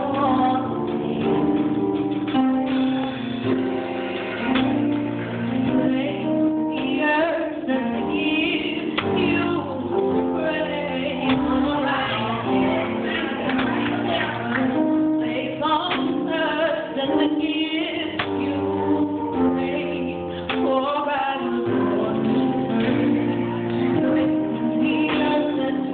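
Gospel choir singing in harmony, with a woman at the front singing the lead into a microphone.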